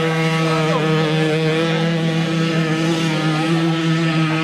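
Racing moped's small two-stroke engine held at a steady high pitch at full throttle, with fainter engine notes of other mopeds gliding up and down beneath it.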